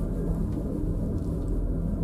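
Steady low rumble and hum of a 1972 Trojer two-seat fixed-grip gondola cabin travelling along the haul rope between towers, heard from inside with the window open.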